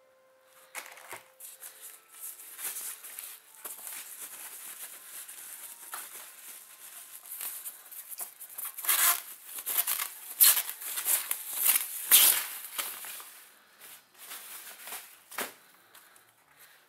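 Plastic protective sleeve around a satellite receiver rustling and crinkling as the receiver is handled and slid out of it. The crinkling is loudest in a run midway through, with one sharp crackle near the end.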